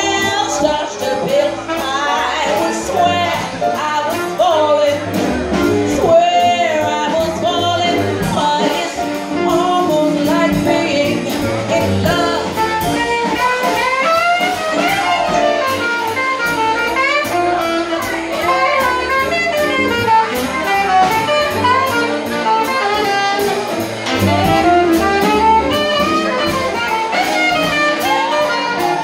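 Live jazz-blues: a woman singing into a microphone, with a saxophone playing alongside and a small combo of upright bass, drums and keyboard backing her.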